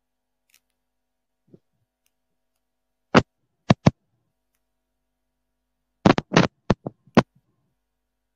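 A series of short, sharp taps: one about three seconds in, two more half a second later, then a quick run of about six near the end.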